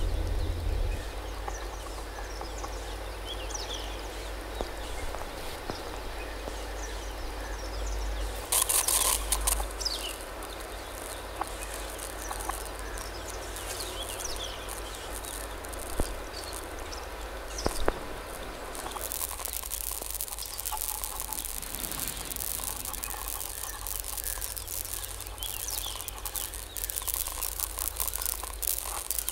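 Outdoor field recording: scattered small bird chirps over a steady low rumble, with bursts of crackling rustle about nine seconds in and again from about nineteen seconds on, and two sharp clicks.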